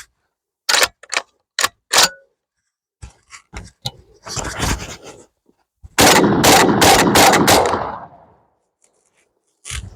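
12-gauge bullpup shotgun being test-fired. Four sharp shots come in the first two seconds, then a rapid string of about six shots from about six seconds in, their echoes running together and dying away by about eight seconds.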